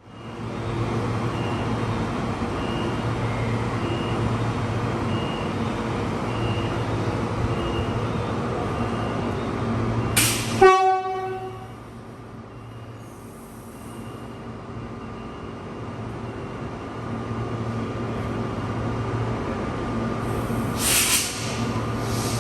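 Electric suburban train at a station platform, running with a steady hum and a faint repeating high tone, then one short loud blast of the train horn about halfway through. Near the end comes a brief hiss of air.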